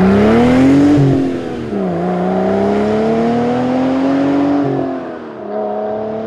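Car engine accelerating hard through the gears: its pitch climbs, drops at a shift about two seconds in, climbs again, drops at another shift near the end, then fades.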